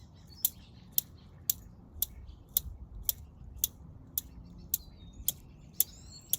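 Steady mechanical ticking, about two sharp ticks a second, like a clock. Faint bird chirps come in near the end.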